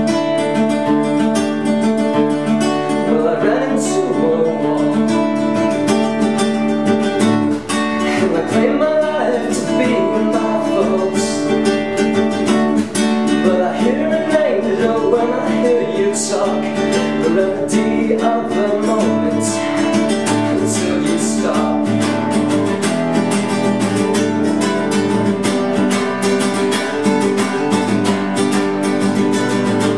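Acoustic guitar played without pause, a mix of picked notes and strumming, the strumming growing denser toward the end.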